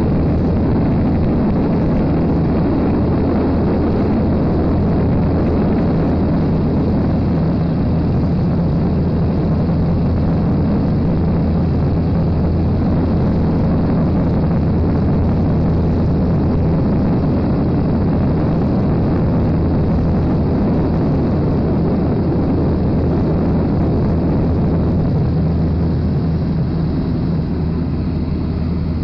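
Scheibe C-Falke motor glider in flight, heard from inside the cockpit: its piston engine and propeller running in a steady low drone over airflow noise, a little quieter near the end.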